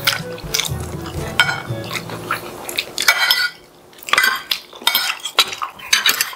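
Metal spoons and forks clinking and scraping irregularly against plates as two people eat.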